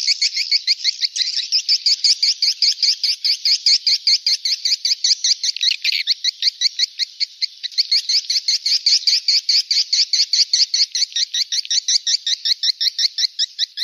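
Swiftlet calls played as a swiftlet-farming call sound: a fast, unbroken run of short, high, twittering chirps, rhythmic and evenly spaced. It is an edited lure track made to draw swiftlets into a nesting house.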